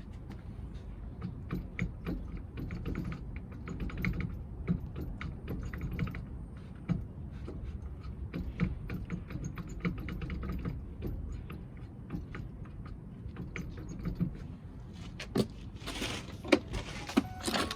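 Scattered light clicks and knocks, like tools or small metal parts being handled, over a steady low rumble; the knocks get louder and more frequent near the end.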